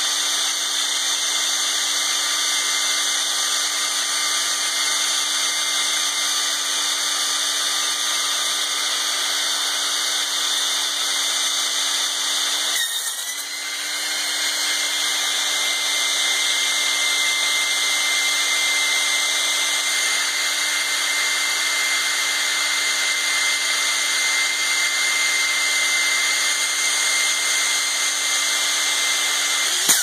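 A blow-dryer's small motor and plastic fan running bare, out of the dryer's housing, with a steady whine over a rushing hiss. The sound dips briefly about halfway through, then picks up again with a higher whine added, and stops at the end.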